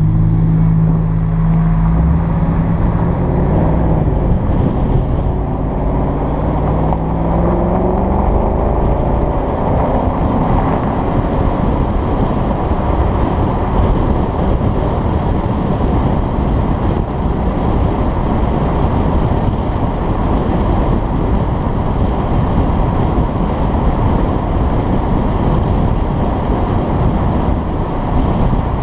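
2011 Jaguar XKR's supercharged V8 exhaust under acceleration, its note climbing steadily over the first ten seconds or so, with fuse 19 pulled to hold the active exhaust valves open. After that a steady rush of road and wind noise on the camera's microphone covers the engine as the car cruises at speed.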